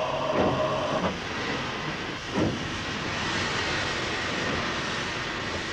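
Steam locomotive Flying Scotsman, an LNER A3 Pacific, giving a steady harsh rush of escaping steam as the driver opens the regulator to start away, with two brief swishes in the first half.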